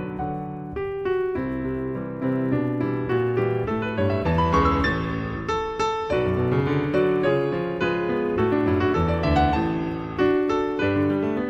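Background piano music: notes struck in quick succession, each fading away, with chords underneath.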